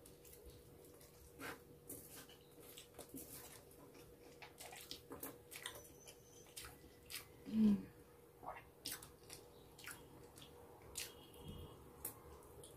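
Close mouth sounds of eating roast chicken and rice by hand: faint chewing with many small wet clicks and lip smacks. One louder, short, low sound comes about seven and a half seconds in.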